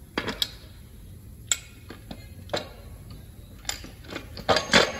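Sharp metal clicks and knocks as a cast oil filter housing is handled and seated against the front of a Scania DC16 V8 engine block. The taps are spaced out, with the loudest cluster near the end.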